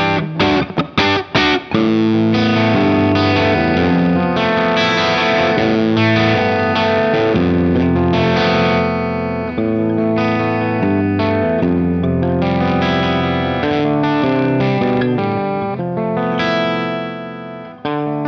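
Electric guitar played through an EarthQuaker Devices Acapulco Gold distortion pedal: heavily distorted chords. A few short, choppy stabs come about a second in, then a run of sustained, ringing chord riffs.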